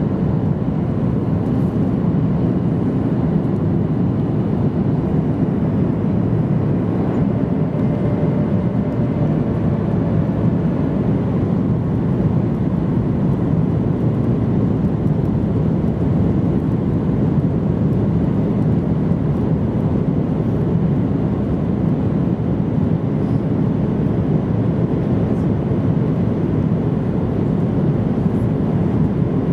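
Steady cabin roar inside a Boeing 737-800 on approach with its flaps extended, heard from a window seat over the wing: the CFM56-7B jet engines and the rush of airflow blend into one even, low rumble.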